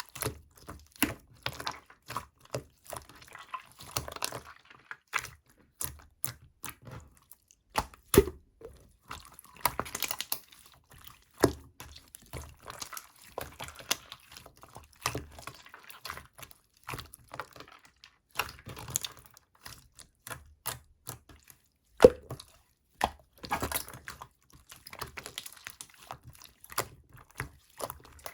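Two-layer slime, clear and opaque, being squished, poked and stretched by hand, making irregular wet clicks, pops and squelches. The sharpest pops come about 8 and 22 seconds in.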